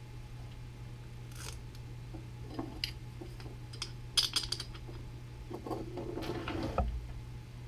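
A snowshoe binding with an aluminum crampon being handled and fitted by hand: scattered small clicks and taps, the sharpest about four seconds in, then a stretch of rubbing and rustling near the end. A steady low hum runs underneath.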